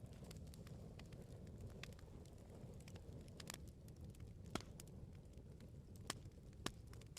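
Bonfire burning: a low steady rumble of the flames with scattered sharp crackles and pops from the firewood, a few louder pops in the second half.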